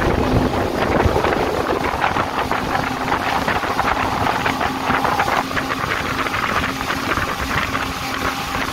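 Yamaha 250 hp four-stroke outboard running with the speedboat under way: a steady low engine hum under the rush and splash of water.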